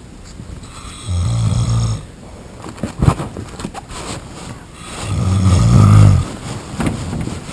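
A sleeping person snoring: two long, low snores about four seconds apart, the second longer and louder, with a short sharp click between them.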